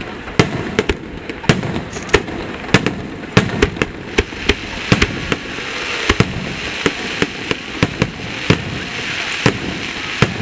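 Fireworks finale barrage: aerial shells bursting in quick irregular succession, sharp bangs about two a second, over a hiss that grows louder in the second half.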